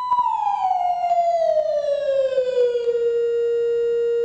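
Sine-wave tone from a function generator, played through an audio amplifier and loudspeaker. It glides smoothly down in pitch from 1000 Hz to about 500 Hz over the first three seconds, then holds steady. A few faint clicks are heard while the frequency knob is being turned.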